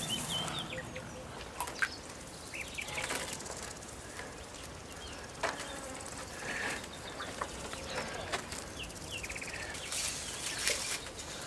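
Outdoor rural ambience: scattered short, high chirping calls and a few sharp clicks.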